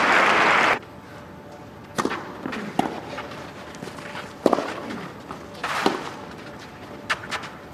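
Crowd applause that cuts off abruptly under a second in, then a tennis rally on a clay court: sharp racket-on-ball strikes every second or two, with softer ball bounces between.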